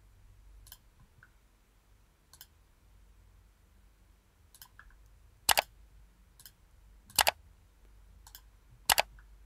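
Computer clicks while trimming sketch lines in CAD software. There are faint single clicks every second or two, and three much louder sharp clicks about halfway through, around two-thirds through and near the end.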